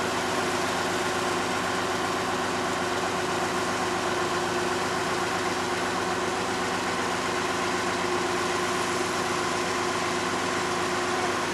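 Kato truck crane's diesel engine running steadily while hoisting a suspended work platform, a constant engine hum with a held tone over it.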